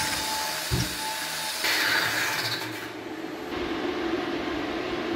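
Electric angle grinder running against a steel weld bead, cleaning the weld between passes, with a harsher grinding stretch about two seconds in. After about three and a half seconds the sound drops to a duller, steady hum.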